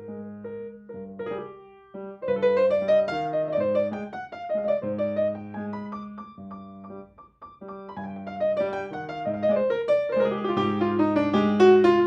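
Piano playing: a repeated low bass figure under a melody of quick runs, with a dip just before two seconds in and again about halfway, and the fullest passage near the end.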